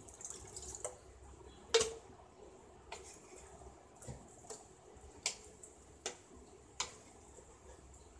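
Water pouring into a pan of curry for about the first second, then a spatula stirring the gravy and knocking against the metal pan about once a second. The loudest knock comes about two seconds in.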